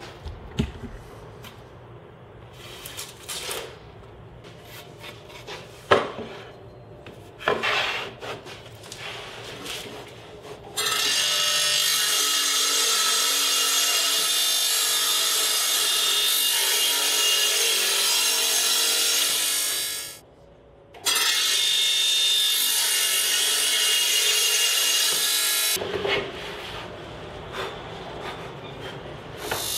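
Wooden boards and a plywood table saw sled being handled, with scattered knocks and sliding. About a third of the way in a table saw starts and runs loud and steady, breaks off for about a second, runs again, then stops, and the handling resumes.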